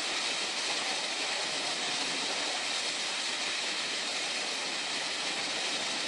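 Steady rushing of Multnomah Falls, the falling water heard as an even, unbroken hiss.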